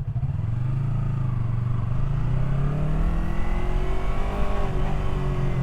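Yamaha R3's parallel-twin engine pulling away from low revs, its pitch rising steadily for about four seconds, then easing off slightly near the end.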